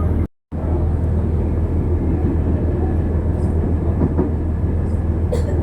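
Airport train running, a steady low rumble with a noisy haze of wheel and track noise. The sound cuts out completely for a moment just after the start.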